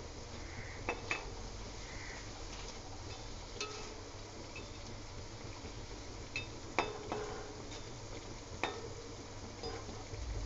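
Ash gourd leaf fritters frying in hot oil in a wok, a steady sizzle, with a perforated metal spatula clinking against the pan several times.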